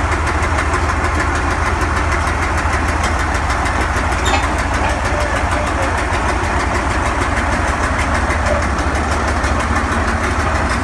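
Caterpillar D8 diesel engines of the Siamese Twin D8 crawler running steadily as the machine drives slowly forward, with a brief click about four seconds in.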